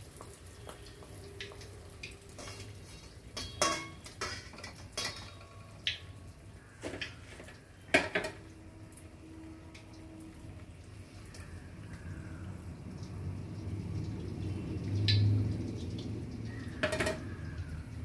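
Metal utensil clinking and knocking against a pan of hot oil while sweet appam are deep-fried, in scattered sharp clicks, the loudest about eight seconds in. A brief low thump comes about fifteen seconds in.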